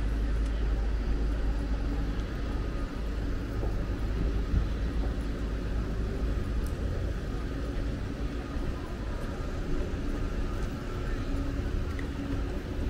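Steady low rumble of vehicles in a busy urban setting, with faint voices in the background.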